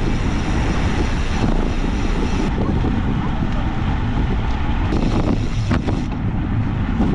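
Wind rushing over a bike-mounted camera's microphone, with road noise from a road bicycle rolling on asphalt at about 25 km/h. A couple of brief knocks come a little past the middle.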